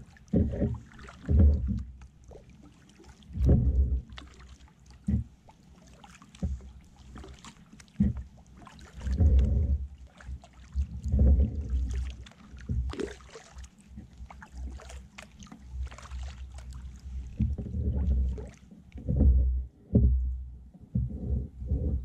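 Kayak paddling: the paddle blades dip and splash with water dripping between strokes. Irregular loud low thumps and rumbles come and go throughout.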